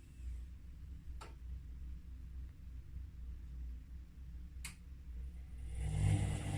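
Washing machine running with a steady low rumble, two sharp clicks about three and a half seconds apart, and the machine growing louder near the end.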